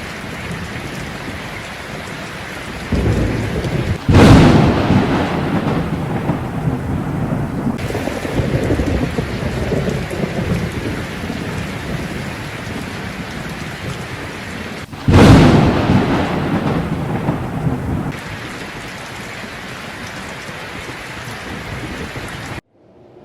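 Heavy rain pouring steadily, with two loud thunderclaps, about four seconds in and again about fifteen seconds in, each rumbling away over a few seconds.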